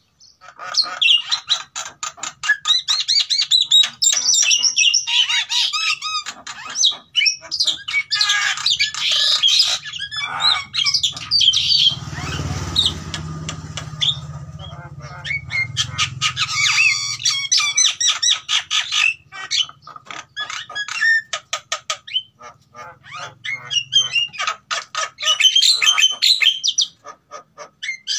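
A pair of caged Javan mynas (jalak kebo), male and female, calling together in breeding condition. Long runs of fast, harsh chattering and squawking notes, broken by brief pauses.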